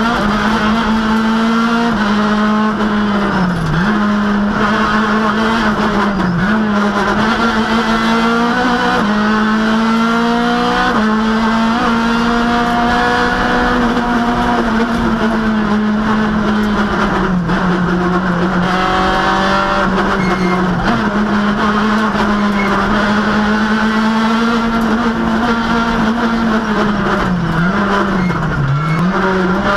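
Citroën Saxo rally car's engine heard from inside the cabin, run hard at high revs, its pitch dipping briefly several times as the driver lifts and changes gear and then climbing again.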